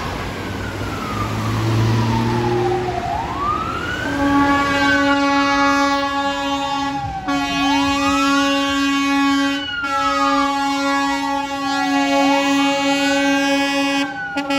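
Fire engine siren wailing, each cycle rising quickly and falling slowly, about every four and a half seconds. From about four seconds in, the fire engines' air horns join with a steady blare, broken briefly a few times.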